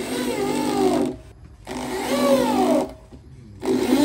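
Electric drill driving screws through a speaker terminal plate into a wooden subwoofer box: three runs of the motor, each about a second long, the last starting near the end. In each run the motor whine falls in pitch as the screw tightens.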